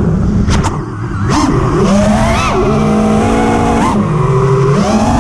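FPV quadcopter's brushless motors whining, the pitch swooping up and down with the throttle. The sound dips briefly about a second in, rises and falls in quick sweeps, holds a lower steady hum for a moment near the end, then climbs again.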